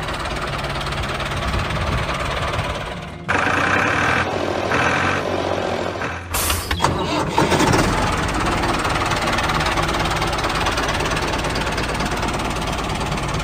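Tractor engine sound effect, a diesel-like engine idling and knocking, dubbed over a toy tractor. It changes abruptly about three seconds in and again about six seconds in, where clips of the sound are joined.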